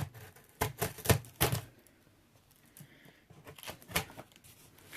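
A cluster of sharp knocks and taps from about half a second to a second and a half in, and a few more near four seconds: a cardboard box being handled and set down.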